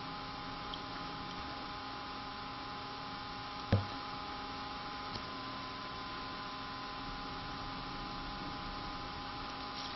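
Steady electrical hum with a faint hiss behind it, and one short knock a little under four seconds in.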